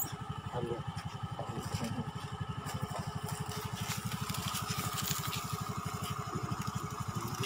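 A small engine idling steadily, an even low putter of about ten beats a second.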